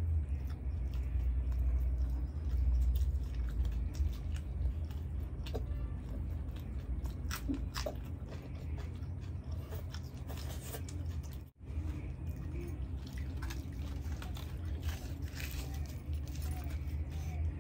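Close-miked eating sounds of two people eating chole bhature with their hands: wet chewing, biting and crisp crunches, full of small clicks and smacks over a low steady hum. The sound cuts out for a moment a little past the middle.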